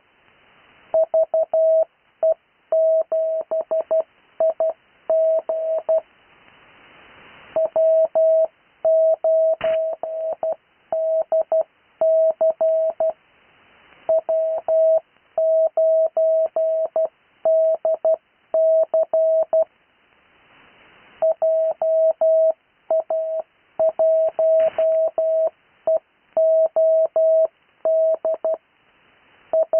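Morse code (CW) keyed as a single steady mid-pitched tone, sent as amateur-radio callsigns: quick runs of dots and dashes with short gaps between characters and longer pauses between groups. A faint hiss fills the longer pauses.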